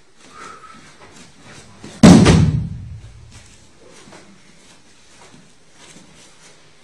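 A person thrown down onto a training mat, landing with one heavy slam about two seconds in and a short low boom dying away after it.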